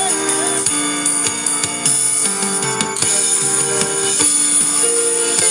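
Worship band playing an instrumental passage between sung lines: held keyboard chords over a drum kit, with a steady high cymbal shimmer.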